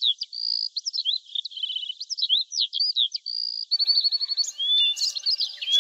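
Small songbirds chirping and whistling in quick, high, overlapping calls, a dawn birdsong ambience. Soft background music comes in faintly from a little past halfway.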